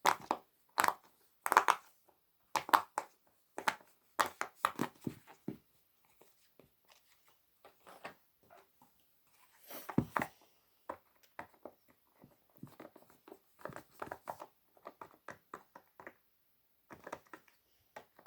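Silicone pop-it fidget toy bubbles being pressed, giving short, sharp pops in irregular runs, some single and some in quick succession.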